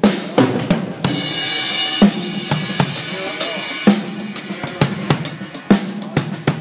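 Drum kit played during a sound check: repeated kick and snare hits with hi-hat. About a second in, a cymbal crash rings on for roughly three seconds.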